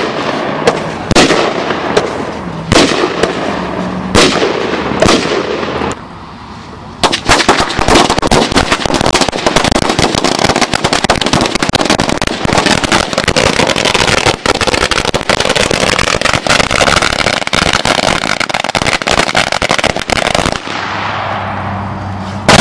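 Firecracker celebration roll going off. Several separate loud bangs come about a second apart, then after a brief lull hundreds of firecrackers crackle in a dense, continuous rapid string for about thirteen seconds before dying down. A single big bang comes right at the end.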